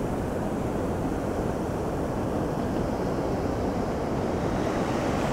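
Shallow surf washing in and out, mixed with wind buffeting the microphone: a steady low rush with no distinct events.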